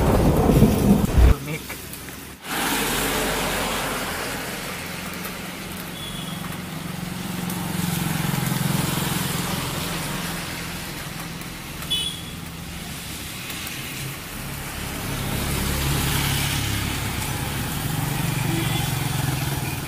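Traffic on a wet road in the rain: motorbikes and scooters passing, their engines swelling and fading over a steady hiss of tyres and rain. A loud low rumble fills the first second or so and stops abruptly about two seconds in.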